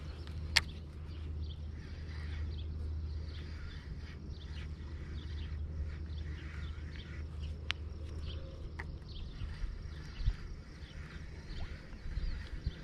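Outdoor ambience with faint bird chirps over a steady low rumble. A few sharp clicks cut through, the loudest about half a second in and others near eight and thirteen seconds.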